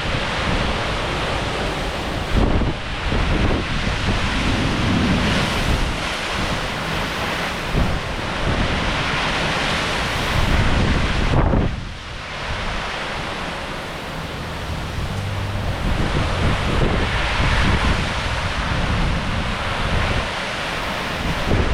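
Hurricane-force wind gusting hard and buffeting the microphone: a loud, continuous rushing that surges and eases, with a brief lull about twelve seconds in.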